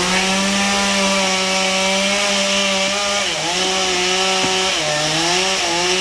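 Chainsaw running at full throttle while cutting wood, its pitch dipping twice under load before easing off at the end.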